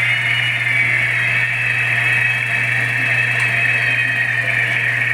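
Singer Graflex 1115A 16 mm film projector running: a steady mechanical whir from the motor and film transport, over a steady low hum.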